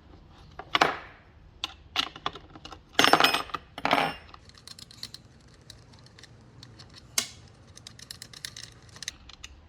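Irregular clicks, knocks and clatter of hand tools and plastic on a chainsaw as its clutch side cover is undone and lifted off. The loudest clatter comes about three and four seconds in.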